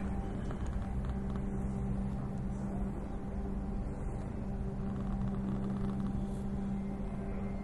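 A small motor humming steadily at one constant pitch, with a low rumble underneath.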